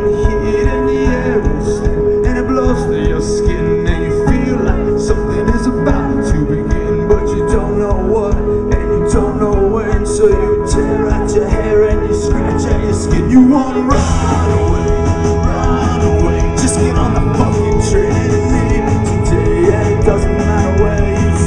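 Live rock band playing: drums with steady cymbal strokes, keyboard, guitar and bass. The low end grows fuller about two-thirds of the way in.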